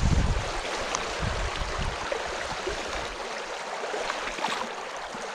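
Shallow stream running over stones: a steady rush of water, with a low rumble during the first couple of seconds.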